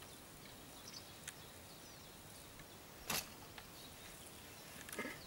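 Faint outdoor ambience with a steady hiss, a few short high bird chirps, and a few sharp clicks, the loudest about three seconds in.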